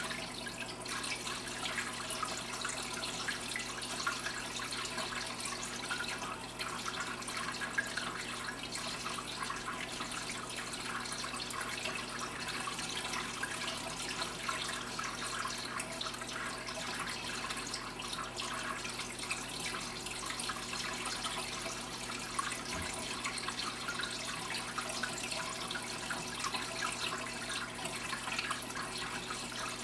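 Water trickling and splashing steadily as it circulates through an overflow aquarium, with a low steady hum underneath.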